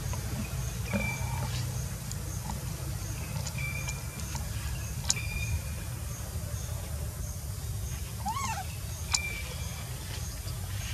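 Baby macaque giving short, high squeaks a few seconds apart, with one rising-and-falling cry about eight seconds in, over a steady low rumble. Two sharp clicks, about five and nine seconds in, are the loudest moments.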